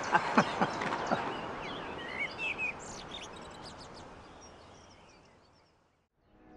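Garden ambience with birds chirping and whistling short phrases over a soft background hiss, fading out gradually to silence near the end. Brief laughter at the very start.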